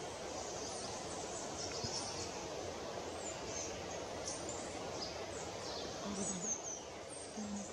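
Tropical forest ambience: a steady hiss with many short, high chirps and whistles from several small birds calling throughout. Two brief low hums come near the end.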